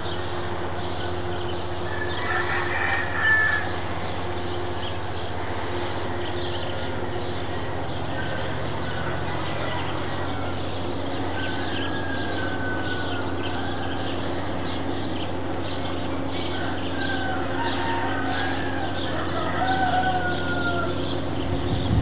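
Roosters crowing several times, each crow a short call that slides in pitch, over a steady low hum.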